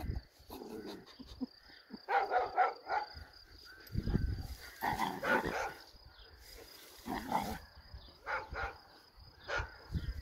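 Puppies barking and yipping as they play-fight, in about five short bursts of quick yaps with brief pauses between.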